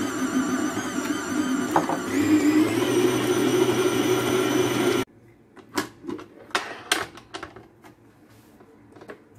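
Kenwood Chef Titanium stand mixer running as its dough hook kneads pizza dough: a motor whine that wavers with the load and rises in pitch about two seconds in. It cuts off suddenly about five seconds in, and a few sharp clicks and knocks follow as the steel bowl and dough are handled.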